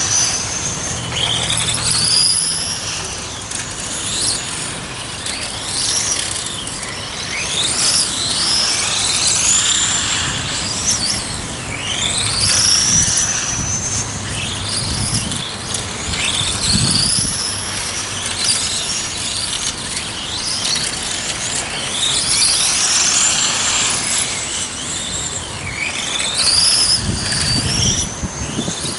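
Several 1:8-scale electric RC racing cars lapping together. Their motors give high-pitched whines that rise and fall over and over as the cars accelerate and brake through the corners, overlapping one another.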